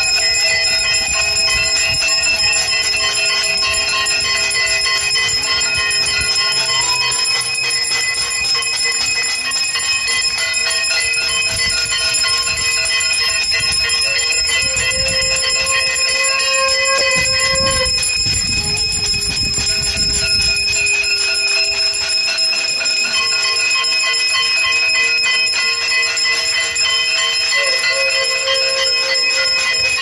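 Many brass hand bells ringing nonstop at once, struck rapidly, with a dense clangour of ringing partials. A conch shell sounds a long held note about halfway through and again near the end.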